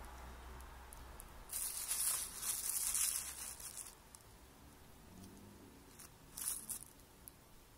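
Thin plastic dog-waste bag crinkling and rustling as a kitten paws and bites at it where it sticks out of a jeans pocket: a burst of about two and a half seconds starting about a second and a half in, then one short rustle near the end.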